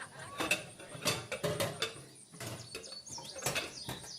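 Party ambience: scattered clinks and knocks like cups and glassware, with a few quick bird chirps about three seconds in.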